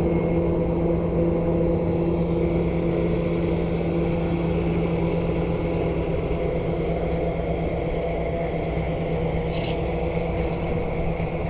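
Small construction machine's engine running steadily, a constant-pitched hum over a low rumble that eases somewhat in the second half.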